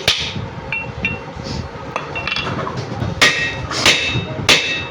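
Hammer blows on the steel crankshaft assembly of a Hero Splendor motorcycle engine: light metallic clinks, then three sharp ringing strikes about two-thirds of a second apart in the second half.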